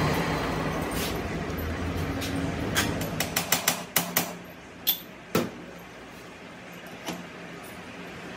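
Metal lathe running with a steady hum that fades out about three seconds in. Then a hammer taps metal: a quick run of about eight sharp taps in a second and a half, then two more single taps and a faint last one, as a drill chuck is seated in the lathe tailstock.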